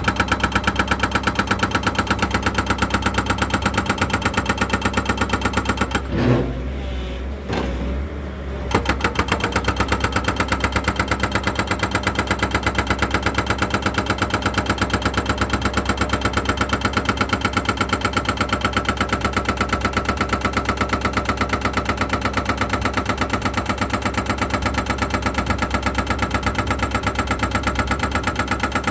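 An engine running steadily with a regular pulsing beat. About six seconds in, it drops away for two to three seconds, then comes back at the same steady note.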